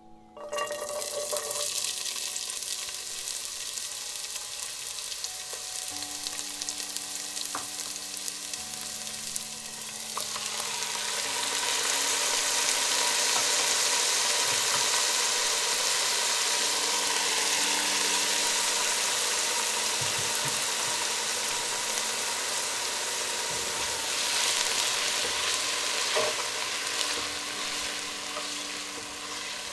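Chopped red onion dropped into hot vegetable oil in a nonstick pot, sizzling as it starts to fry. The sizzle starts suddenly and grows louder once the chopped tomatoes with their juices go in, and the vegetables are stirred with a spatula near the end.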